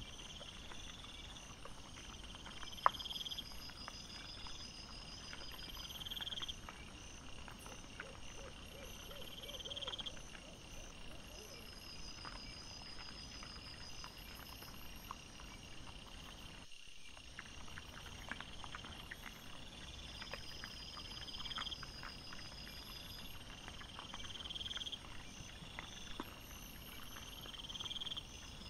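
Night insects chirping in high, evenly repeating trills every two to three seconds, with scattered faint clicks and rustles from wild boar foraging in leaf litter. A sharp click about three seconds in, and a brief dropout about two-thirds through.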